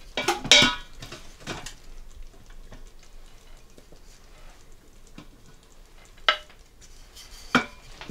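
A wooden spoon knocking and scraping against a pressure cooker's stainless steel inner pot as cooked rice is scooped out onto a plate. The knocks are loudest about half a second in, with two sharper, briefly ringing knocks near the end.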